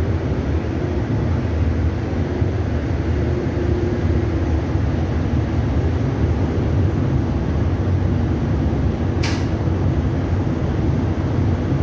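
Steady low rumble of a boat's engines heard on board, with a faint steady hum over it and wind noise. A brief sharp hiss about nine seconds in.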